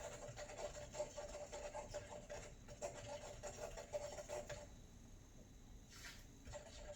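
Small push-button electric mixer whirring faintly as it stirs the tea. It stops about four and a half seconds in and starts up again near the end.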